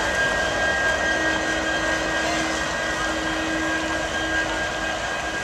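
Union Pacific diesel-electric locomotive standing and idling: a steady engine rumble and blower noise with constant whining tones, one of which drops out near the end.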